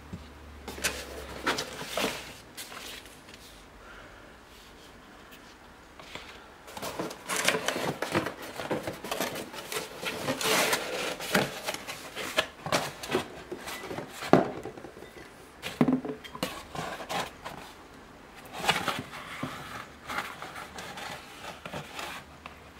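Hands handling cardboard packaging inside a box: irregular rustling, scraping and light knocks. There is a short flurry about a second in, then a longer busy stretch from about a third of the way in until near the end.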